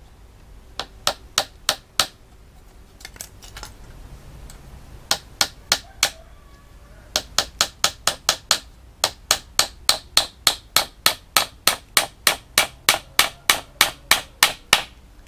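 Small hammer tapping small nails into a thin wooden screen frame, in quick light strikes. A few scattered taps at first, then a steady run of about three strikes a second from about seven seconds in.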